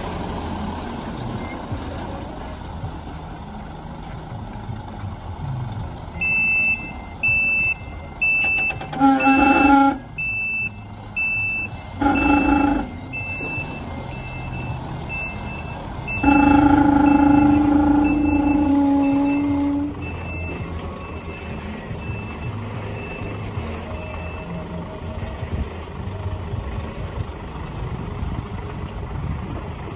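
Dump truck's diesel engine running with its bed raised, tipping a load of dirt. A reversing beeper repeats about one and a half times a second from about a fifth of the way in, fading toward the end. Three horn blasts cut through, the last and loudest held for about three seconds.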